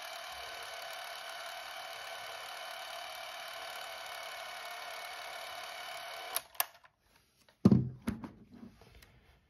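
Canon 514XL-S Sound Super 8 movie camera running steadily, its motor and film drive making an even mechanical whir that stops about six seconds in with a couple of clicks. A loud thump and a few small knocks follow soon after.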